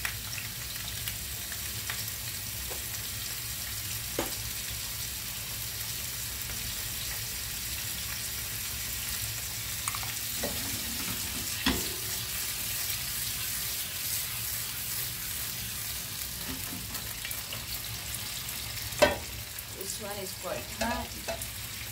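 Potato sticks frying in hot olive oil in a pan: a steady sizzle, with a few clinks of cookware, the loudest near the end.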